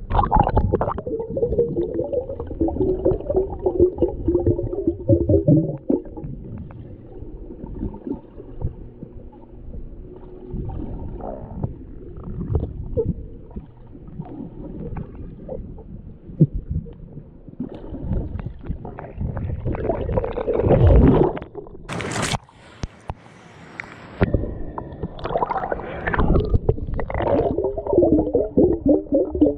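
Muffled underwater gurgling and rumbling as water sloshes around a submerged camera, in uneven surges. A brief sharp hiss comes about three-quarters of the way through, followed by a moment of quieter sound.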